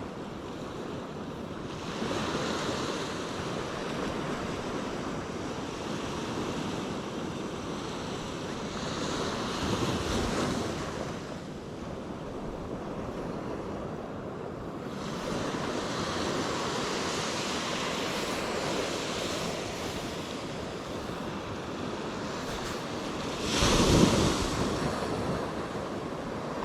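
Surf breaking and washing up a beach, swelling and easing, with wind buffeting the microphone. A louder surge comes in near the end.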